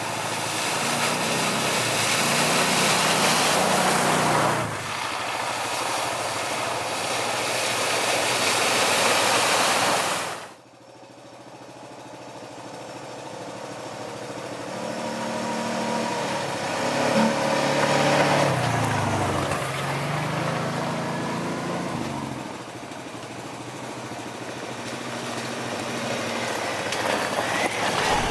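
ATV engines running on a trail ride, with heavy wind rush over the microphone for the first ten seconds. After a sudden drop, the engine pitch rises and falls with the throttle.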